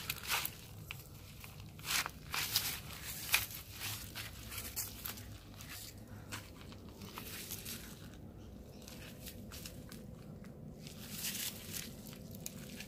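Footsteps crunching and rustling on dry grass and weeds: irregular crackles that thin out for a few seconds about two-thirds of the way through, then pick up again.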